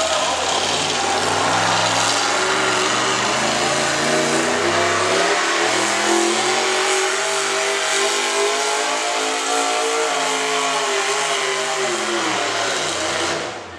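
V8 engine of a hot rod pulling tractor running at full throttle while dragging a pulling sled. The revs climb over the first several seconds, hold, then fall away in the last few seconds as the pull ends.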